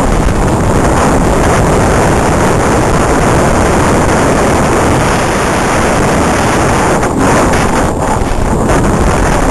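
Loud, steady rushing noise from a camera mounted on a racing RC car: wind on the microphone mixed with the car's running noise, with a few brief dips near the end.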